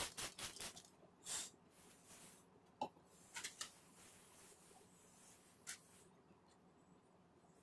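Quiet kitchen handling noises: a quick run of light clicks in the first second, a short rustle, then a few scattered small knocks, over faint room tone.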